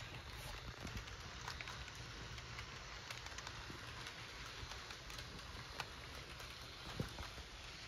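Model freight train cars rolling along the track: a faint steady low rumble with many small irregular clicks and rattles from the wheels on the rails, one sharper click about seven seconds in.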